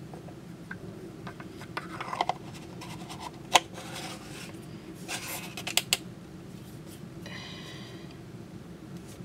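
Rubbing and scraping of a cylindrical canister being handled, its top twisted, with scattered sharp clicks and a short squeak about three-quarters of the way through.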